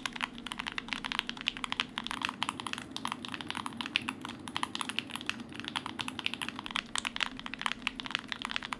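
Fast, continuous typing on a TKD Cycle 8 custom TKL mechanical keyboard with GMK Striker keycaps: a quick, unbroken stream of keystrokes.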